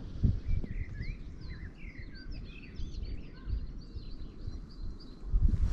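Small birds chirping and twittering, many quick overlapping calls starting about a second in, over a steady low rumble.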